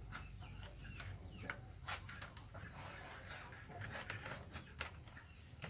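Light, irregular clicks and taps of small bamboo cricket cages being handled by hand, their slats and lids knocking together.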